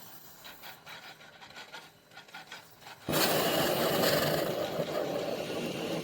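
Faint clicks and handling noise, then about three seconds in a steady rasping mechanical noise starts abruptly and runs on, much louder.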